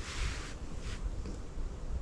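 Low, gusty wind rumble on the microphone outdoors, with a short rustle at the start and another brief one about a second in.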